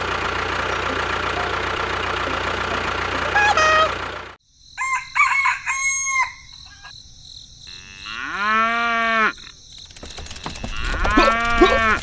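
A steady mechanical hum cuts off abruptly about four seconds in. Farm-animal calls follow: a few short clucking calls, then two long drawn-out calls that rise, hold and fall.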